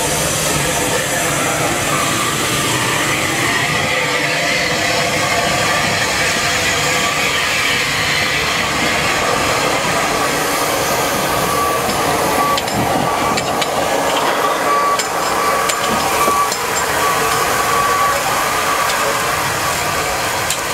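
Standing steam locomotive giving off a steady hiss of escaping steam, with a faint on-and-off high tone partway through.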